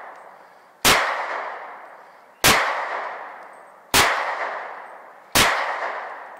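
Four gunshots fired at a steady pace, about one and a half seconds apart, each followed by a long fading echo.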